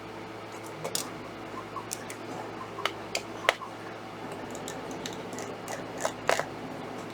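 Irregular small clicks and taps of a Torx screwdriver working out small screws and of small parts being handled, over a low steady hum.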